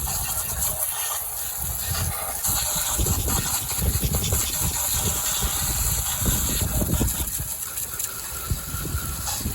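Wind gusting and buffeting the microphone, with an uneven low rumble over a steady hiss.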